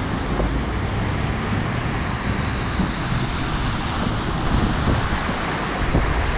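Cars driving through a flooded street, their tyres hissing and spraying through standing water, with wind buffeting the microphone. The spray gets a little louder in the second half as an SUV passes close.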